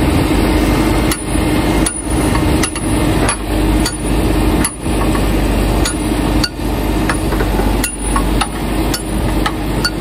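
Repeated hammer blows on a steel pivot pin, driving it back into the loader arm of a Hidromek 102S backhoe loader: sharp metallic strikes, about one or two a second and unevenly spaced. The machine's engine idles steadily underneath.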